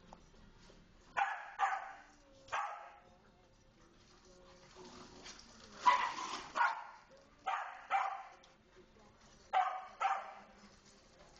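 A dog barking in short, sharp barks, mostly in pairs about half a second apart, about nine barks in all in four spells. The loudest bark comes about six seconds in.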